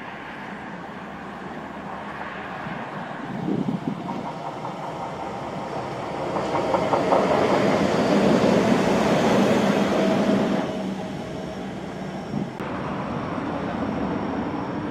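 Utsunomiya Light Rail HU300 low-floor tram passing on an elevated track, its wheel-on-rail and running noise building as it approaches and loudest about halfway through as it goes by close. The sound then drops off and changes abruptly near the end.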